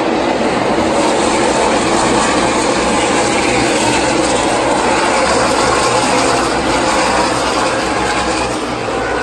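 NASCAR Xfinity stock cars' V8 engines running laps on the short oval, heard from the grandstand as a loud, steady wall of engine noise.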